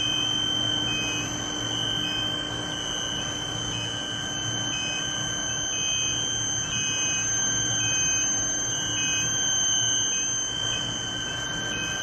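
Induction heating furnace running: a steady high-pitched electrical whine of several fixed tones over a low hum, with one tone pulsing on and off about once a second.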